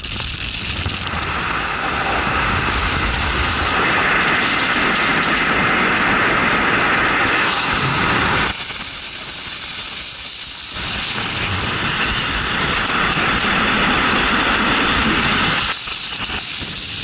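Wind rushing over a camera mounted outside a car driving at speed, mixed with tyre and road noise. The lower rumble drops away for about two seconds midway, leaving mostly a high hiss.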